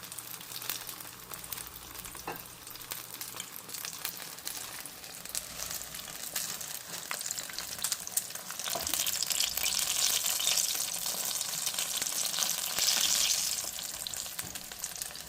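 Turon (banana and jackfruit rolls in spring-roll wrappers) deep-frying in hot oil: a steady sizzle with fine crackling pops. The sizzle grows louder a little past halfway, then eases near the end.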